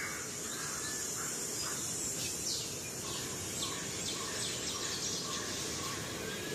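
Forest ambience: many short bird chirps and calls over a steady, high-pitched insect drone.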